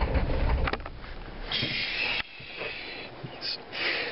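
Ford 7.3L IDI diesel engine running rough on a cold start with bad glow plugs, then dying out less than a second in because it won't keep running. Two short hissing sounds follow.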